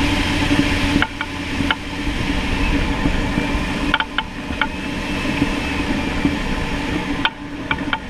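Irregular sharp clicks from the front end of a 1999 Jeep Cherokee XJ over a steady rumble of the running vehicle: the sway bar knocking against the frame through a worn sway bar bushing.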